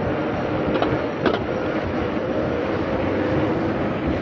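Steady rush of wind and road noise from riding an e-bike, with a steady hum underneath and two short clicks about a second in.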